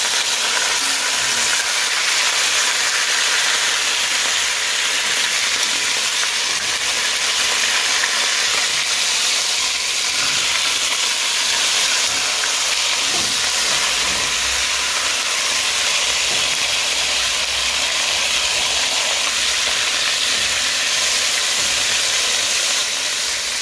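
Seasoned pork browning in a hot pot, frying with a steady sizzling hiss.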